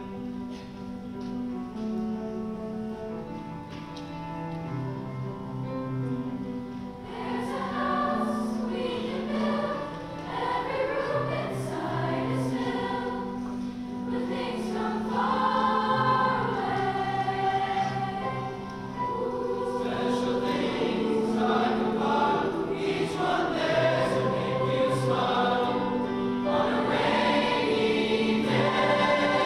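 Large mixed choir of high school voices singing in harmony, with long held chords over a low men's part, growing louder through the second half.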